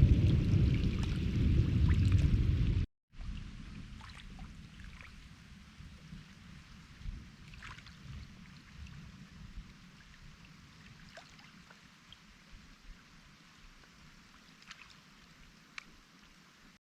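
Rain: a loud low rumble for about the first three seconds, cut off abruptly, then a quieter patter of scattered drops.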